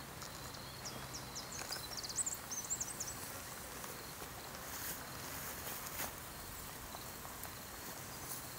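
Faint wild bush ambience: a steady high insect buzz, with a bird's quick run of high chirps about two seconds in. A few light clicks and rustles of people walking through dry grass.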